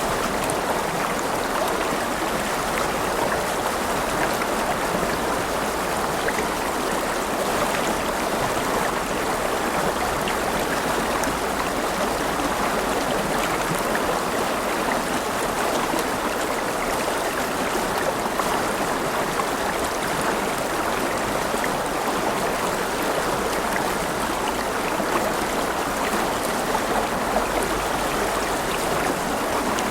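River water flowing and babbling over stones: a steady rushing with small splashes and trickles.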